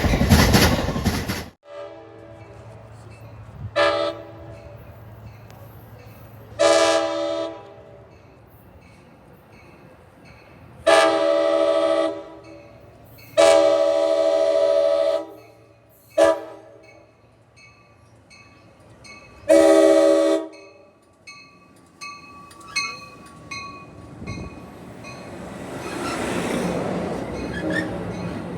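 Amtrak Surfliner cab car's air horn: two short toots, then the grade-crossing signal of two long blasts, a short one and a final long one. A loud rush of noise cuts off sharply at the start. Near the end the rumble of the oncoming train builds up.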